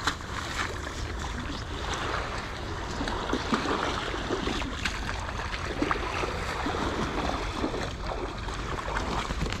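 Lake Superior waves washing on the shore, with a steady low wind rumble on the microphone and scattered small splashes and clicks.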